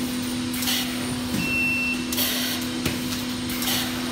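Semi-automatic urine bag film welding and cutting machine running its automatic cycle: a short beep, a hiss of compressed air from the pneumatic press and a knock repeat about every three seconds, over a steady hum.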